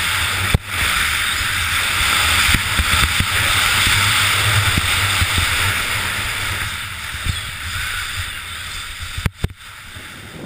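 Skis hissing over snow and wind rushing over the microphone on a fast downhill run. The sound drops away sharply near the end.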